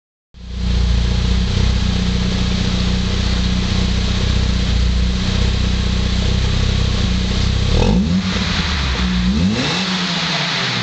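VW Golf engine heard through a complete Bastuck cat-back exhaust with twin tips, idling steadily, then revved in two short throttle blips near the end, the second rising and falling back over about a second and a half.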